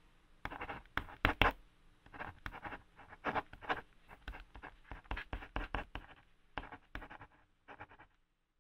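A quick, irregular run of light taps and scratching clicks, thinning out and stopping shortly before the end.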